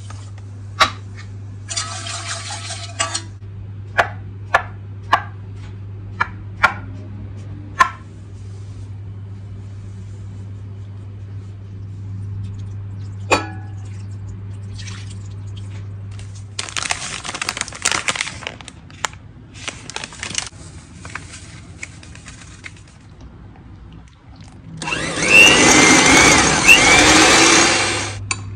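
An electric mixer whipping cream powder with milk into whipped cream, the loudest sound, running about three seconds near the end. Before it come sharp clinks and taps of utensils over a steady low hum.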